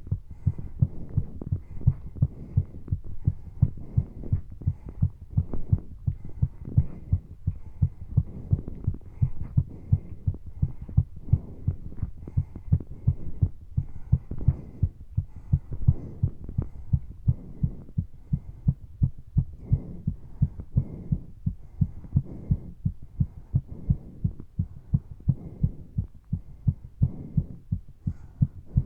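A person's heart beating fast and hard during exercise: rapid, regular low thumps, the pounding of a heart working to supply oxygen, with breathing heard softly beneath.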